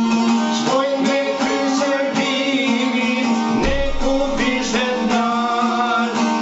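Two long-necked plucked lutes playing a tune together, with a held low note under a moving melody.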